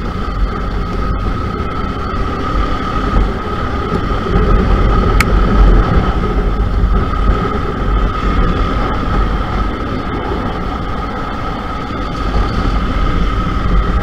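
Motorcycle riding at speed, heard from a camera on the bike: wind rushing over the microphone with the engine running underneath. A steady high whine runs through it, and the sound swells a few seconds in.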